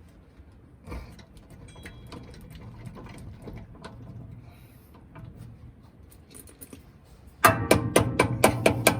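Faint clinks of metal tools being handled, then, near the end, a ratchet wrench clicking loudly and rapidly, about six clicks a second.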